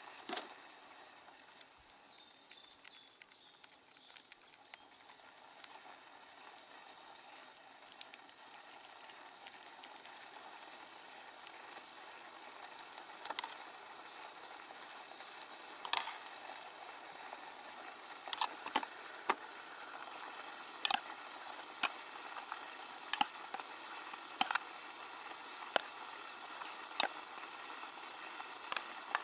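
Metal chopsticks clicking against an aluminium mess tin as noodles are stirred and lifted, in a series of sharp clicks that come mostly in the second half. Under them is a steady low hiss from a gas camp stove heating a pot of water.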